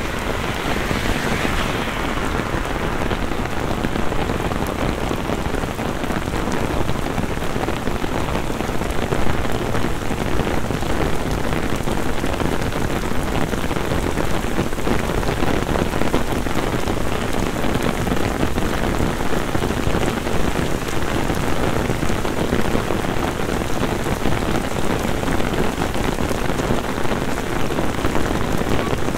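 Heavy downpour: dense, steady rain falling on flooded paving and road, a continuous hiss full of tiny drop ticks. Near the start a vehicle's tyres swish through standing water, fading within about two seconds.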